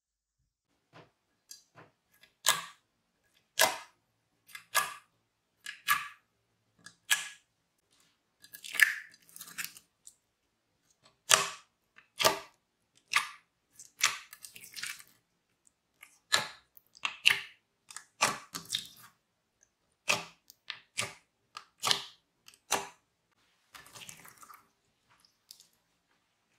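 Clear slime full of beads and glitter being stirred with a plastic spoon and then worked and stretched by hand, giving short wet squishes and pops at roughly one a second.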